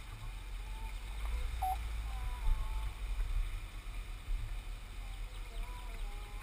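Low, buffeting rumble of wind and road noise picked up by a GoPro mounted beside the front wheel of a slowly rolling Chevrolet, with a few faint high chirps over it.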